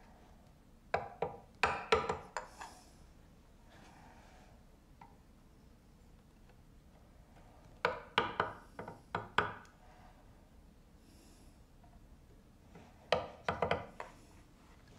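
Round wooden carver's mallet tapping a chisel as it cuts letters into a wooden board: three bursts of quick, sharp taps, about a second in, around eight seconds and about thirteen seconds in.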